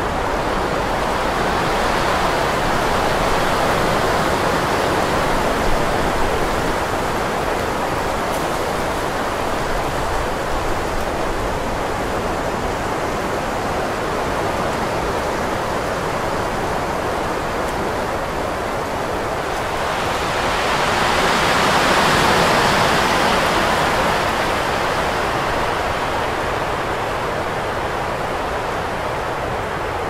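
Winter wind blowing steadily. A gust swells a couple of seconds in, and a stronger, higher-pitched gust builds and dies away about two-thirds of the way through.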